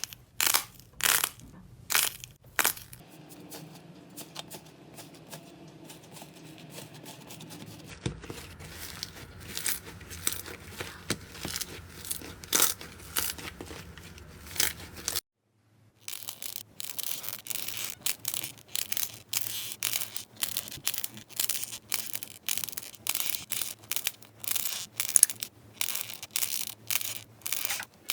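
Slime being pressed and poked, giving sharp crackling pops and crunches. The crackle is quieter and finer through the first half. It stops for a moment of silence about halfway, then comes back as dense rapid crackling.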